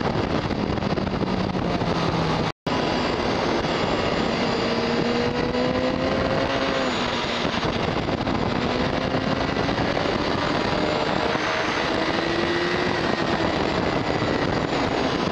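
Onboard sound from a 2006 Honda CBR1000RR Fireblade at speed on a racetrack: heavy wind rush on the microphone, with the inline-four engine note underneath rising and falling in pitch several times. The sound cuts out for a split second about two and a half seconds in.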